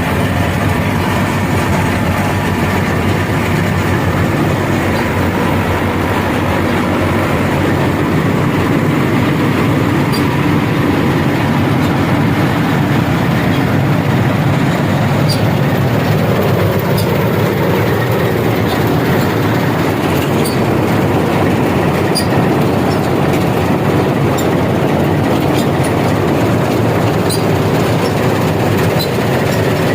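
Dasmesh 3100 mini combine harvester running steadily while cutting and threshing rice, a loud continuous mechanical rumble with a rattling clatter and scattered faint clicks.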